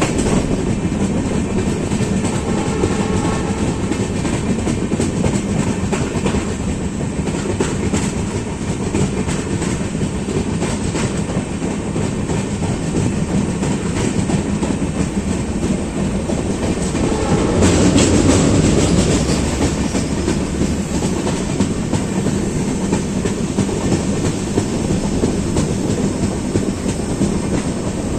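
Passenger train with LHB coaches running at speed: steady wheel-on-rail rumble with the repeated clickety-clack of wheels over rail joints, swelling louder for a couple of seconds about two-thirds of the way through.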